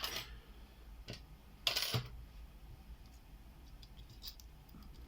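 Small metal lockpicking tools being handled: a few light clicks and ticks, with one short, louder scraping rattle a little before two seconds in.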